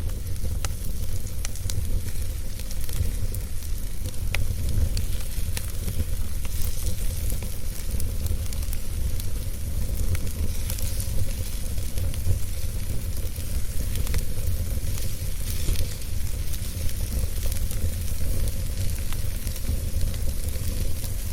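Wood fire burning in a fireplace: a steady low rumble and hiss with scattered crackles and pops, busiest in the first few seconds.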